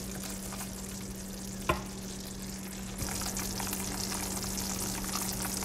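Butter-and-cream caramel bubbling and sizzling in a small nonstick pan as a spatula stirs it, with one sharp knock about a second and a half in. The sizzle grows louder and brighter about three seconds in, over a steady low hum.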